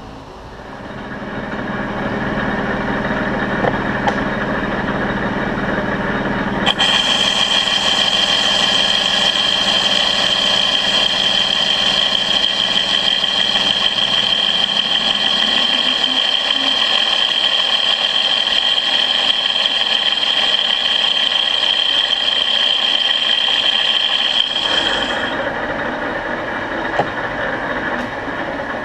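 Metal lathe running with a large brass impeller spinning in the chuck, coming up to speed at the start. From about seven seconds in until about twenty-five, a steady high tone with hiss rides on top as the tool faces off the impeller's hub; then the lathe runs on without it.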